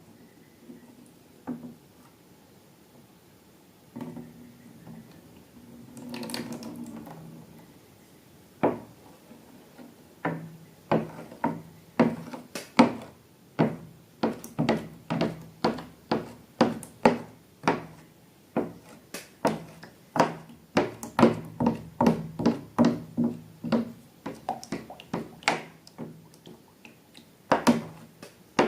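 A series of short, sharp knocks, about two a second from about ten seconds in, after a few scattered clicks and a longer soft rustle around six seconds.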